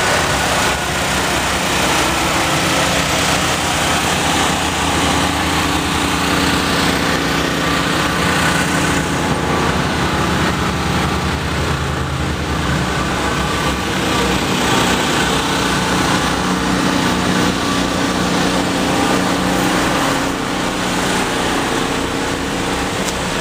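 An engine running steadily, a continuous hum that holds the same speed throughout.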